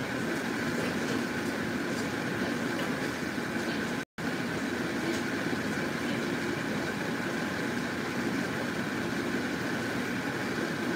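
A pot of broth at a rolling boil, giving a steady bubbling rush that cuts out for a split second about four seconds in.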